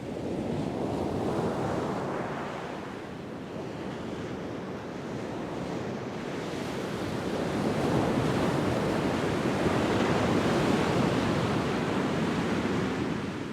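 Sea waves washing onto the shore in a windy coastal wind, the surf rising and falling in slow swells, with a bigger, longer surge from about halfway through.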